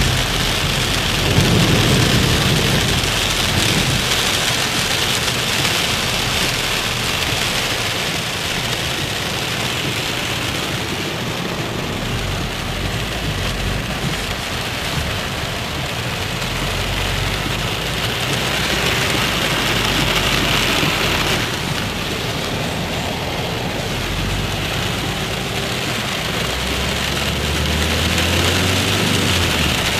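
Torrential rain pelting a car's roof and windscreen, heard from inside the moving car, with tyres running on the waterlogged road and a low engine hum underneath that rises briefly near the end.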